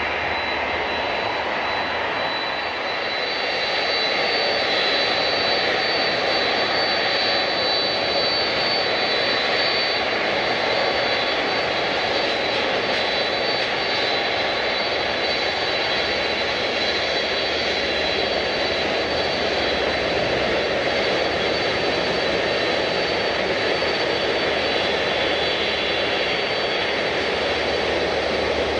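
Airliner engines running, a steady loud rush with a thin high whine, growing a little louder about four seconds in.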